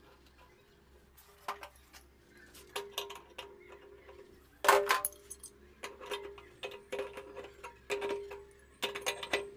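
Light metallic clicks and clinks, some with a brief ring, as a non-return valve is twisted by hand onto the water heater's threaded cold-water inlet. The loudest click comes about halfway through.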